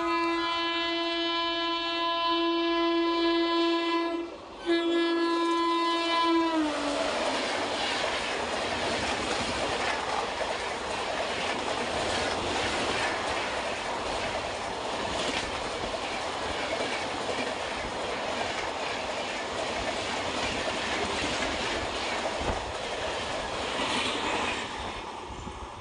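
Indian Railways express train running through a station at speed: the electric locomotive sounds its horn in a long blast and a second shorter one, whose pitch drops as the locomotive passes. The coaches then rush past with steady wheel clatter over the rail joints, fading near the end.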